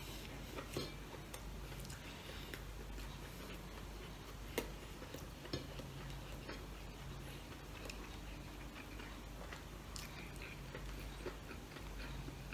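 Close-up eating sounds of pork adobo eaten by hand: soft chewing and small mouth clicks, with fingers picking food off a plate. Two sharper clicks come about a second apart near the middle.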